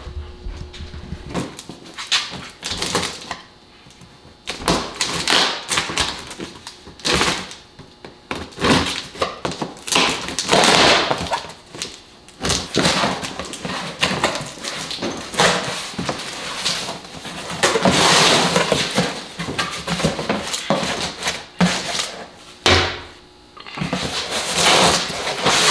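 A cardboard shipping box being cut open and unpacked: irregular scraping, tearing and rustling of cardboard and packing foam, with a few sharp knocks.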